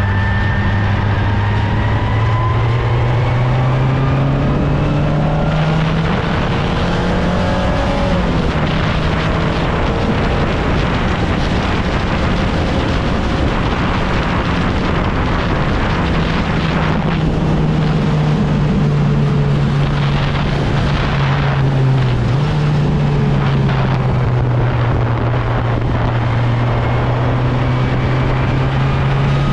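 Open-wheel single-seater race car's engine heard from the onboard camera at speed, its pitch climbing and falling with throttle and gear changes through the corners, over a steady rush of wind and road noise.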